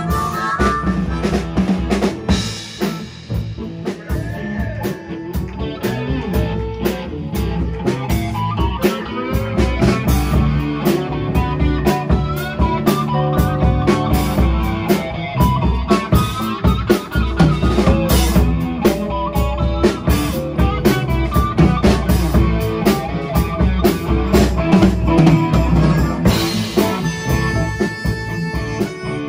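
Live blues-rock band playing a song, led by a drum kit with steady beats and rimshots under guitar.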